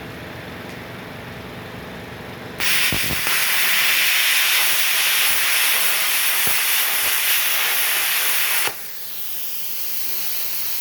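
Multipro CUT 45G SB plasma cutter torch hissing loudly with air and arc for about six seconds, starting about two and a half seconds in and cutting off suddenly near the end. Under it runs the steady hum of the oilless air compressor that feeds the torch.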